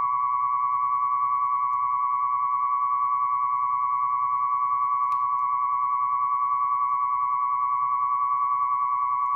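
Test-record tone for a tonearm resonance measurement: 1000 Hz and 1125 Hz tones with a 10 Hz signal, played by an Audio-Technica AT3600L cartridge on a Dual 721. It sounds as a steady high beep that wavers about ten times a second, with a faint low hum underneath.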